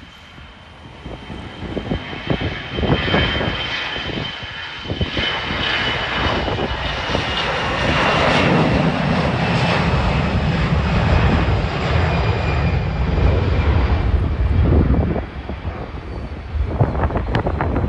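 Jet airliner taking off: engine noise builds to full takeoff thrust as it rolls down the runway and lifts off, with a steady high engine whine over the roar, then falls away near the end.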